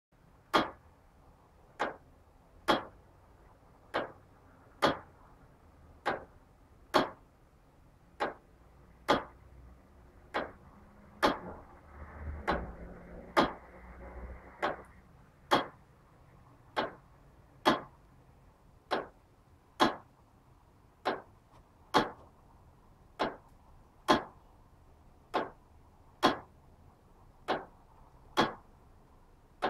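Linderoth tower-clock movement from 1898 ticking: sharp escapement ticks about once a second, in uneven pairs with gaps that alternate slightly longer and shorter. A faint low rumble swells and fades about halfway through.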